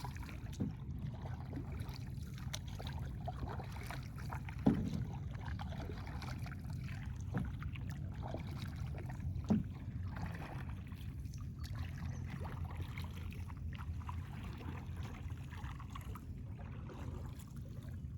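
Canoe being paddled: water swishing around the paddle and hull over a steady low rumble, with a few wooden knocks of the paddle against the canoe, the two loudest about five and nine and a half seconds in.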